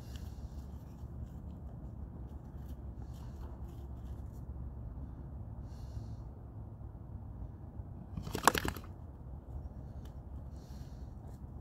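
Two large mastiff-type dogs, a Boerboel and a Serbian Defense Dog, play-wrestling on dry grass: soft scuffing and rustling at intervals over a steady low background rumble, with one short, sharp, louder noise about eight and a half seconds in.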